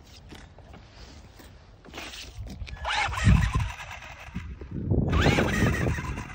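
Small electric RC buggy driving on wet pavement, its motor whining up and down in pitch in two bursts of throttle, about three and five seconds in, over light clicking and tyre noise.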